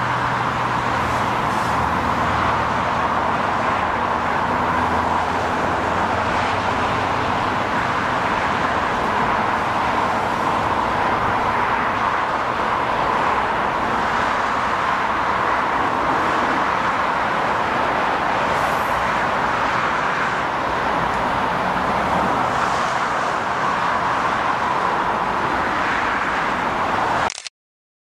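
Steady freeway traffic noise blended with a long freight train of loaded hopper cars rolling past. The sound cuts out abruptly for under a second near the end.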